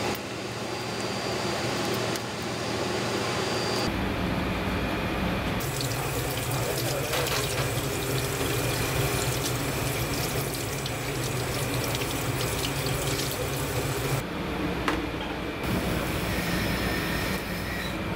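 Tap water running into a stainless-steel sink and splashing over a gutted scorpionfish being rinsed by hand, from about six seconds in until about fourteen, over a steady low hum.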